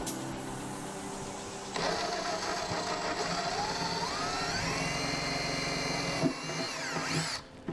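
Electric drill drilling a hole through a go-kart seat: it starts about two seconds in, its motor whine rises in pitch, holds steady, then winds down and stops near the end.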